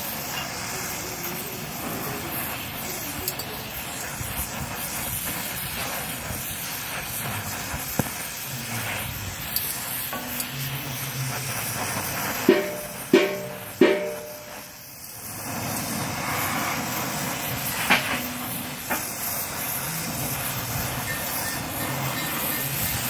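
Gas brazing torch flame burning with a steady rushing noise while brass is brazed onto the carbide teeth of an earth auger blade. A little past halfway, three sharp knocks come in quick succession, each with a short ring, and the noise dips briefly after them.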